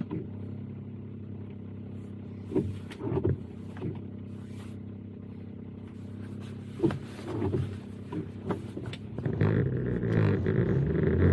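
A car's engine running steadily, heard from inside the car, with a few sharp knocks. About nine seconds in it grows louder and more uneven.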